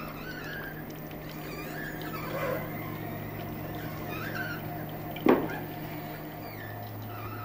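Cold oil press running with a steady electric motor hum that drops in pitch about six and a half seconds in, with short high chirps scattered through it. A single sharp knock about five seconds in is the loudest sound.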